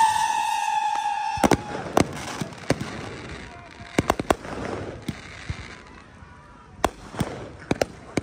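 Fireworks: a whistling firework's high whistle, dipping slightly in pitch, fades out about two seconds in, then a dozen or so sharp bangs and cracks of shells bursting, scattered irregularly.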